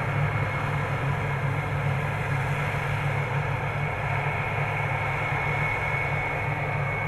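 New Holland FR 9080 self-propelled forage harvester working, chopping sorghum: a steady heavy engine hum with a thin, steady high whine over it.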